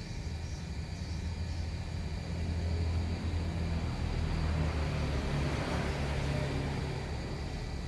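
A motor vehicle's engine rumbling low, growing louder through the middle and easing off near the end.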